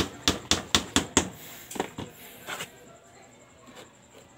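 Hammer striking wood: a quick run of about six sharp knocks, then a few lighter knocks about two seconds in.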